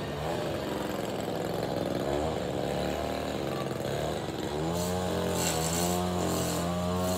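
An engine running, its pitch rising and falling several times, then holding steady from about two-thirds of the way in.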